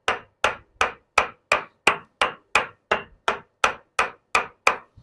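Sharp, even percussive strikes, about three a second, in a steady unbroken rhythm: rhythmic striking during a bodywork treatment.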